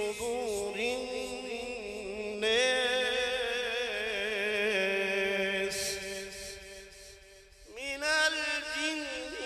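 A qari reciting the Quran in the melodic tajweed style, one man's voice drawing out long notes with rippling ornaments. A long phrase fades about seven seconds in, and a new phrase starts at once.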